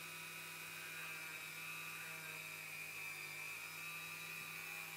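Flex-shaft rotary tool running steadily at medium speed, about 15,000 RPM, with a steady high whine over a low hum. Its spinning wooden tip is being pressed into a bar of green polishing compound to load it.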